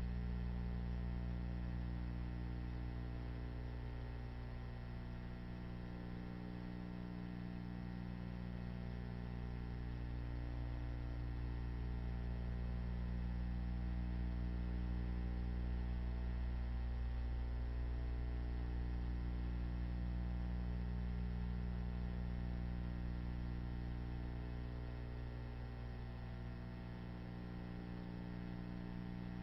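Steady electrical mains hum with a stack of overtones and a light hiss, and no other sound.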